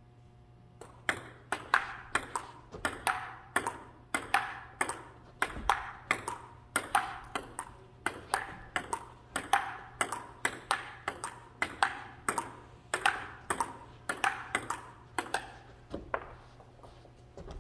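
Table tennis rally: a ping-pong ball clicking back and forth off the paddles and the table, two to three hits a second, for about fifteen seconds before stopping near the end.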